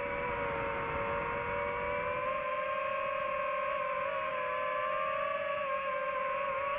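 DJI FPV drone's motors and propellers whining steadily. The pitch drifts slowly up and down together with the throttle and wavers briefly near the end.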